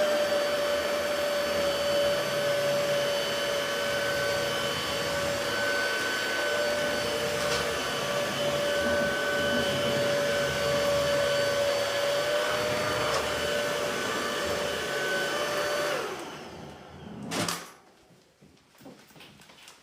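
Womow W9 Pro cordless stick vacuum's brushless motor running with a steady whine, then switched off about sixteen seconds in and winding down. A single knock follows about a second later.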